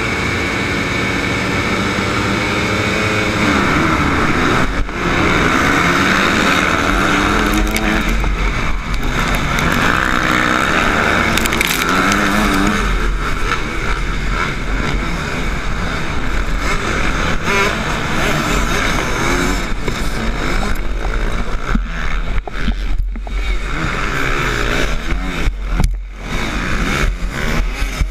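Motocross bikes at a race start: the onboard MX2 dirt bike revs and accelerates hard among the pack, its engine note rising and falling repeatedly through the gears.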